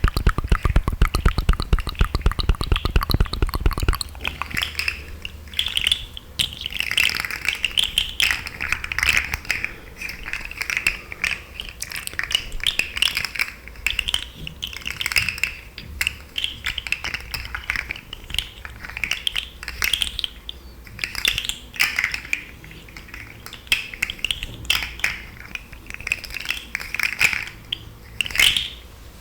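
Close-miked wet mouth sounds: saliva clicks, smacks and tongue noises in irregular bursts, with a rapid run of fast clicks over the first few seconds.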